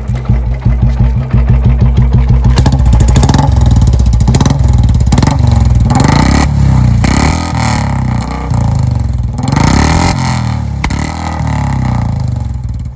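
Old-model Royal Enfield Bullet's single-cylinder four-stroke engine running just after starting, first with an even thumping beat, then louder as the throttle is opened and closed, the revs rising and falling.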